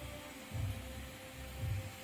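Background music with a low pulse about once a second over a steady hum.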